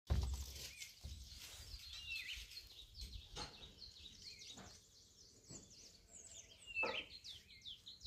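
Small birds chirping, many short high calls in quick succession, with a few faint knocks, the loudest about seven seconds in.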